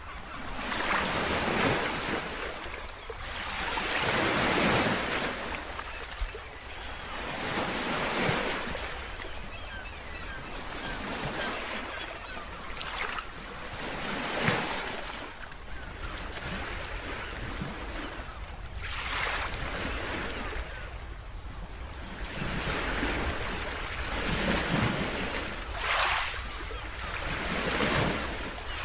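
Sea waves breaking and washing on the shore, the surf swelling and receding every few seconds, with some wind.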